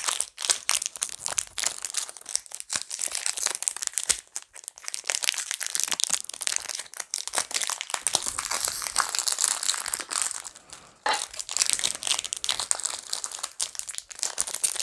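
Foil wrapper of a Pokémon trading card booster pack crinkling as it is handled and torn open by hand: a dense stream of crackles, with a short lull about ten seconds in before it starts again sharply.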